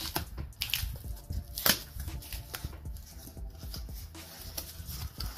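Utility knife slitting the packing tape along the seam of a cardboard box, then the cardboard flaps being pried up and folded open. Irregular scraping and rustling with a few sharp snaps of cardboard and tape.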